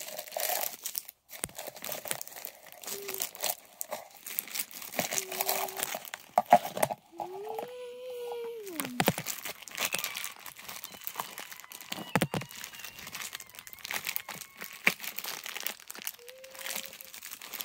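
Plastic candy wrappers crinkling and rustling as a hand stuffs them into the hopper of a toy garbage truck, with a short tone that rises and falls about halfway through.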